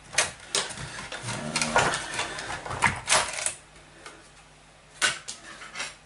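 Hands handling the opened Yamaha DX11 synthesizer's metal chassis and circuit boards: a run of irregular sharp clicks and knocks, a lull about four seconds in, then two more clicks near the end.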